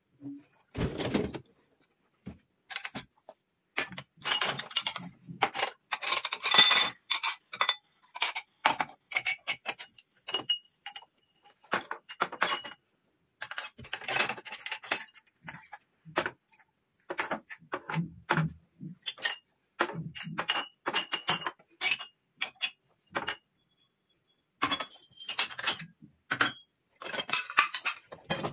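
Irregular clinks and knocks of hard objects being handled and set down, a few with a brief ring.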